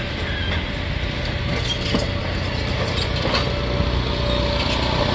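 Passenger train cars rolling past at close range: a steady rumble of steel wheels on the rails, with a steady thin whine and a few sharp clicks about two and three seconds in.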